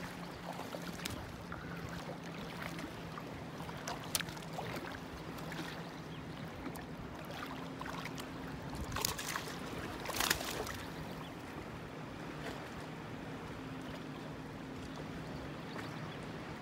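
Hooked smallmouth bass splashing in shallow water as it is played and grabbed by hand, with short sharp splashes about four, nine and ten seconds in, the one near ten seconds the loudest. A low steady hum runs underneath.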